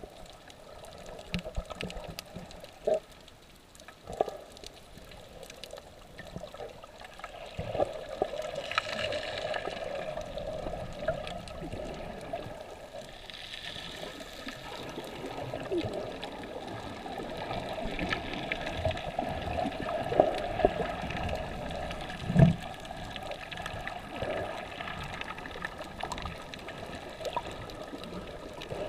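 Shallow surf heard underwater: a muffled, steady wash of churning water and bubbles from breaking waves, with scattered small clicks and one louder thump about two-thirds of the way through.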